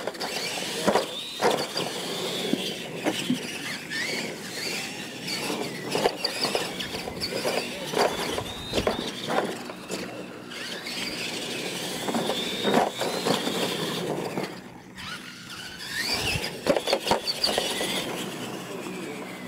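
Electric motors of R/C monster trucks of the Tamiya Clod Buster kind racing: a high whine that rises and falls as the trucks speed up and slow. Short knocks and clatter come from the trucks bouncing over the ramps.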